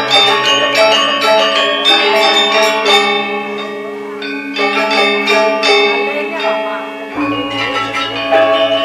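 Balinese gamelan ensemble playing a tabuh kreasi: rapid interlocking strokes on bronze metallophones, thinning briefly about four seconds in. A large gong is struck about seven seconds in, its low tone pulsing under the ensemble.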